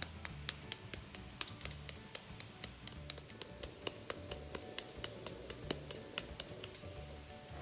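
Light, irregular finger taps, several a second, on the plastic powder cup of a Central Machinery (Harbor Freight) electrostatic powder coating gun while it sprays. The tapping loosens the powder so it feeds out evenly. Background music plays underneath.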